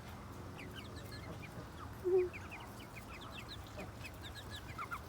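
A flock of chickens making many short, high chirps, with one short, lower cluck about two seconds in.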